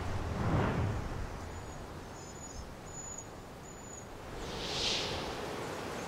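Wind rushing over the microphone of a fast-flying FPV drone, a steady rushing noise with a whoosh about half a second in and a higher whoosh about five seconds in.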